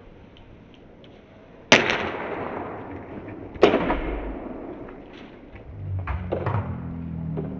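Two sharp, loud cracks about two seconds apart, each followed by a fading rattle: a carbon catfish rod snapping under a 20 kg test load.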